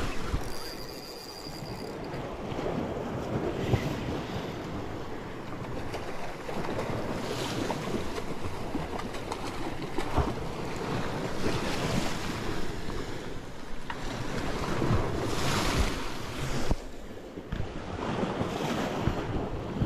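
Sea waves washing and splashing against shoreline rocks, swelling louder every few seconds, with wind buffeting the microphone.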